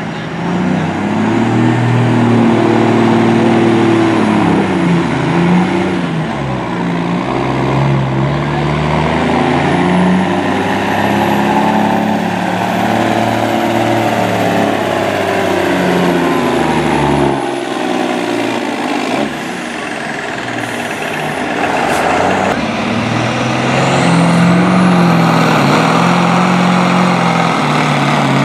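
Diesel semi trucks pulling a weighted sled under heavy load, engines revving up and down, with a high whistle rising and falling above them. About two-thirds through the engine sound drops away briefly, then another truck's engine comes up and revs hard.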